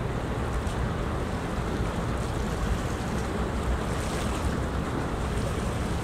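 Steady rushing wind and water noise with a low rumble underneath, even throughout.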